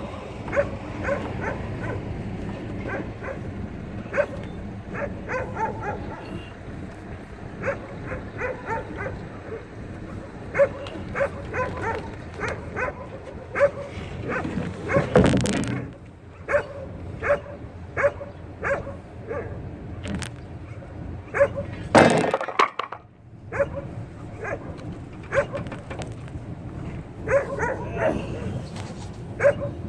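Many short, pitched animal calls like yips, coming several a second at times. Two louder, noisy surges come about halfway through and again about three-quarters through.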